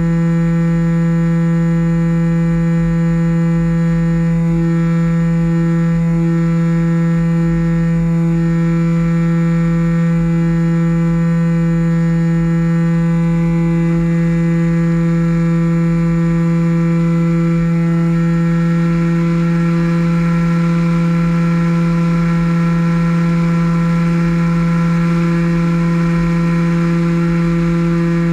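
Small RC airplane's nose-mounted electric motor and propeller running at steady throttle in flight: a loud, steady drone made of a stack of pitched tones, the higher tones growing stronger about two-thirds of the way through, over a low rumble.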